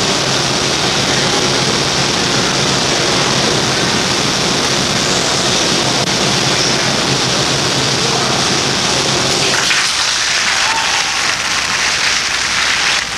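A steady rushing noise with a low hum, then audience applause breaking out about ten seconds in and running on as a dense clatter of clapping.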